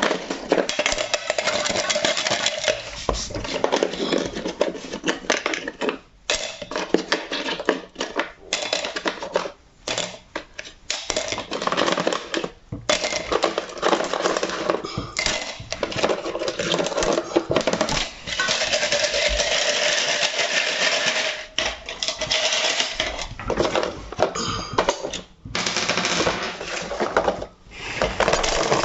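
Metal hand tools rattling and clattering inside a closed container of rust-remover liquid as it is shaken, in long runs broken by brief pauses.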